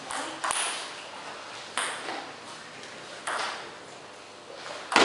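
Table tennis ball knocks, four of them about a second and a half apart, each ringing on in the hall; the last and loudest comes at the end as play starts.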